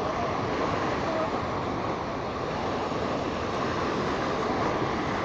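Steady rushing wash of the Hooghly's spring high tide surging along and breaking against the riverbank, mixed with wind.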